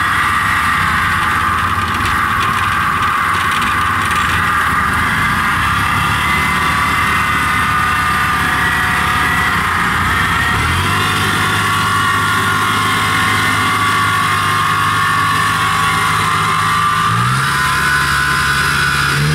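Engine of a tracked rice-transport carrier loaded with rice sacks, running steadily as the machine drives along, with a higher whine from the drive over it. The engine speed picks up about halfway through and again near the end.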